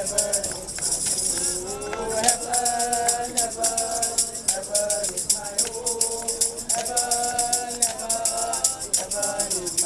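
Voices singing a gospel song together, accompanied by a steady rattling beat of hand percussion.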